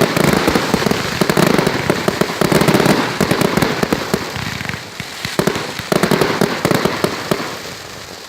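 Fireworks going off in a rapid, dense barrage of sharp pops and crackles. It eases briefly about five seconds in, picks up again, then tapers off near the end.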